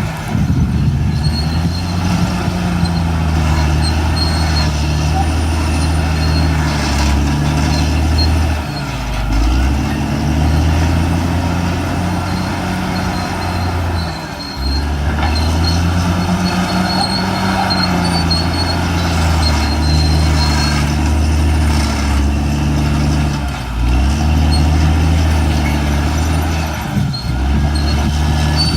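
Caterpillar D6R XL bulldozer's diesel engine running steadily under load, its pitch sagging and picking back up about four times as the load changes.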